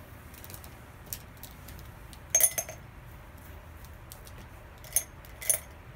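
A few light clinks and knocks of small hard objects: a faint tap about a second in, a loud ringing clink about two and a half seconds in, and two more clinks near the end.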